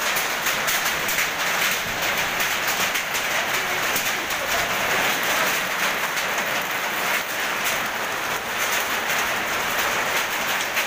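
Heavy hail falling: a dense, steady clatter of hailstones pelting down and striking the ground and things around.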